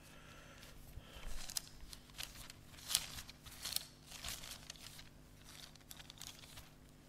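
Thin Bible pages being leafed through close to a lectern microphone: a series of short, irregular paper rustles and crinkles while a passage is searched for.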